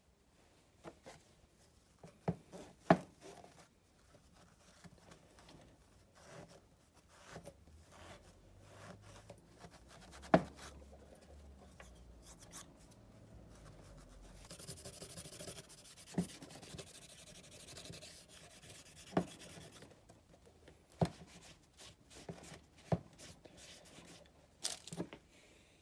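Small engine parts and hand tools being handled at a workbench: scattered light knocks and clicks, two of them sharper, and a few seconds of rubbing noise past the middle.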